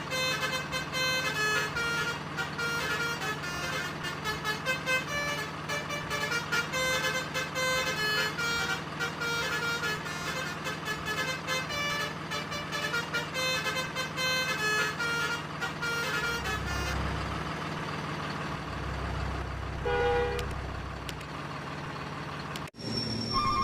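Telolet multi-tone truck horn playing a quick, tuneful run of notes over a steady low engine hum. About 17 seconds in the horn notes mostly stop, leaving a low rumble, and the sound cuts off abruptly shortly before the end.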